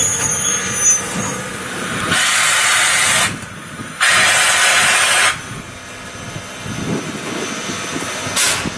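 Steam locomotive letting off steam in two loud hisses, each just over a second long, starting about two and four seconds in, over a low rumble from the train. A high squeal fades out in the first second.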